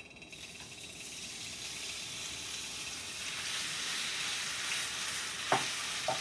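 Marinated thinly sliced beef sizzling in hot oil in a skillet as it is added a little at a time, the sizzle growing louder as more meat goes in. Near the end, two sharp knocks about half a second apart.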